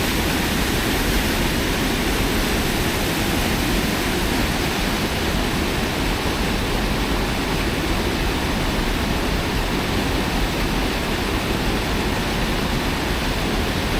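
Steady rushing of a fast, flood-high river.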